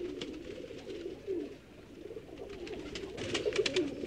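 Domestic pigeons cooing, a low wavering coo that runs on throughout. Near the end comes a quick run of sharp taps.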